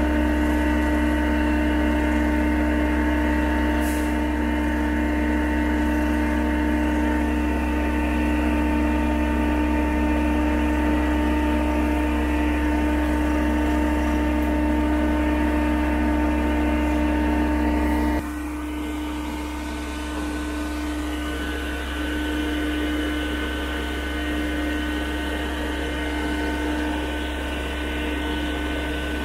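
Truck-mounted mortar pump running with a steady mechanical whine over a low hum. About two-thirds of the way in it drops to a quieter, slightly different steady pitch.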